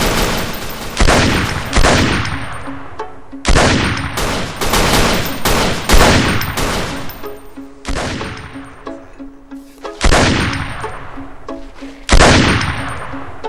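Pistol gunshots in a shootout: a burst of rapid fire at the start, then a dozen or so single shots, some in quick runs of two or three, each with a long echoing tail.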